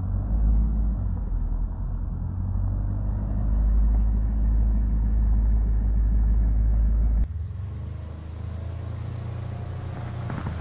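Polaris Ranger Northstar UTV driving, its engine and drivetrain making a steady low rumble. About seven seconds in, the sound drops suddenly to a quieter, lighter rumble.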